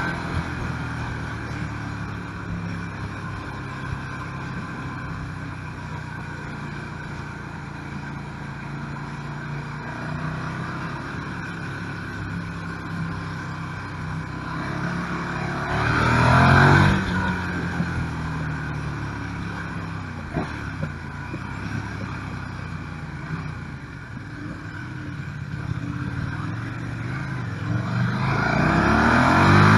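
KTM 1290 Super Duke R's V-twin engine, heard from onboard, running at low steady revs. About halfway through there is a short burst of throttle, and the revs climb again near the end as it accelerates.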